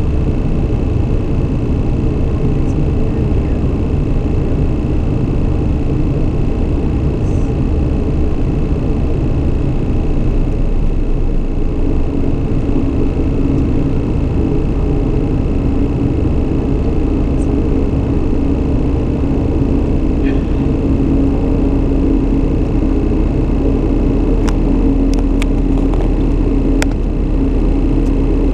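Cockpit noise of a Beechcraft King Air 200 twin turboprop in flight: a loud, steady drone with a steady high whine, one tone in the drone growing stronger about halfway through. A few short clicks near the end.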